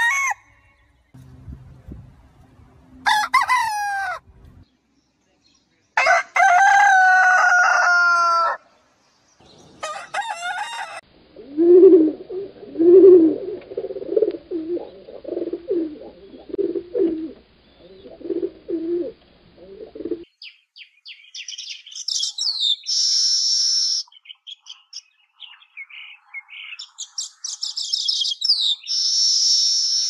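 A rooster crows several times, the longest crow about six seconds in, with low clucking in between. From about eleven seconds a rock pigeon coos in a low, repeated rhythm. From about twenty-one seconds a baya weaver chirps and chatters in high notes.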